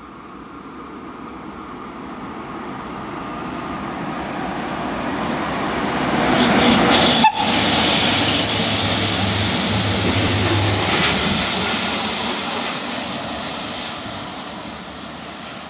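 A short electric-hauled train, two locomotives with one coach, passing at speed. The wheel and rail noise swells as it approaches, peaks about halfway through as the locomotives go by with a low hum, then fades as it moves away.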